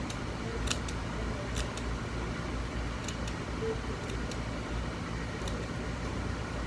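Small stationery scissors snipping through hair while bangs are trimmed straight across: several crisp snips, often in quick pairs, about a second apart, over a steady low hum.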